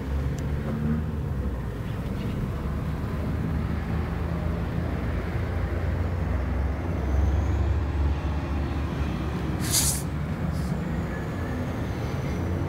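Engine of a homemade motorized reverse trike running at a steady idle, a low even rumble. A short sharp hiss cuts in about ten seconds in.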